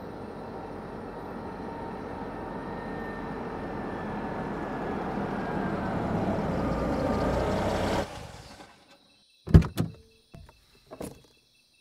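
A car approaching, its engine and tyre noise growing steadily louder for about eight seconds and then cutting off suddenly. A few sharp clunks and knocks follow at the car near the end.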